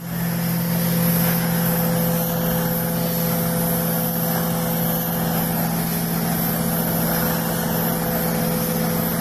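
Truck-mounted carpet-cleaning machine running while its steam wand is drawn across carpet: a low steady hum under the continuous rushing hiss of hot-water spray and vacuum suction at the wand.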